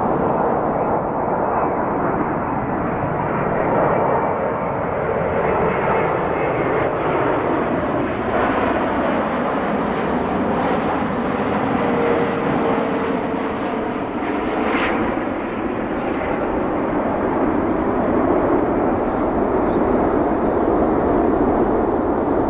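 Boeing 787-9 airliner on final approach passing low overhead, its Rolls-Royce Trent 1000 turbofans at approach power: a steady loud jet rumble and whine whose pitch falls as it goes over, then carries on as the plane moves away down toward the runway.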